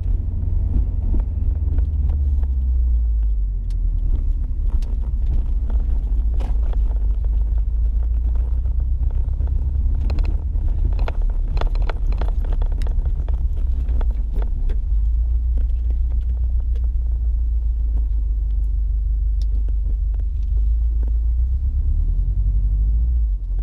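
Low, steady rumble of a 2015 Subaru STI's turbocharged flat-four engine and road noise heard inside the closed cabin while driving, with scattered clicks and knocks.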